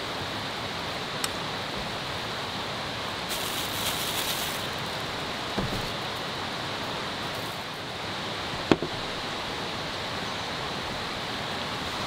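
Steady rushing of a mountain valley stream. A few short sharp clicks or knocks sound over it, the loudest about nine seconds in, with a brief rustle at three to four seconds.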